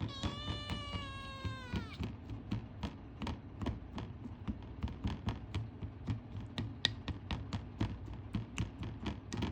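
A Ragamuffin kitten gives one long meow of about two seconds, held level and dropping in pitch at the end, asking for food. A run of irregular sharp clicks or taps follows.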